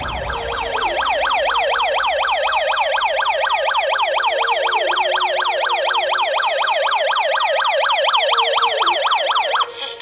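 GSM burglar alarm siren sounding, a loud electronic wail that sweeps up in pitch about four times a second, the alarm triggered while the system is armed. It cuts off suddenly near the end as the system is disarmed at the keypad.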